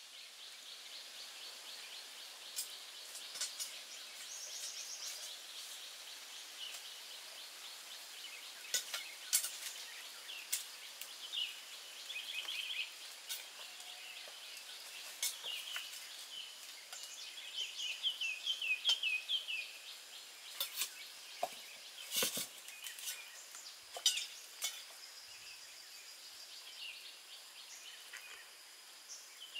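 Outdoor rural ambience: small birds chirping in short runs over a steady high insect drone. Scattered sharp clicks and knocks are the loudest sounds.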